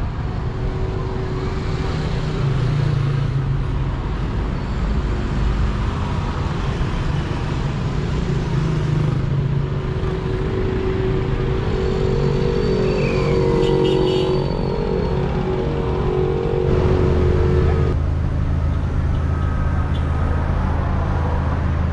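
Motor vehicle engines running with road traffic noise, a steady low hum; a deeper, steadier engine hum sets in about seventeen seconds in.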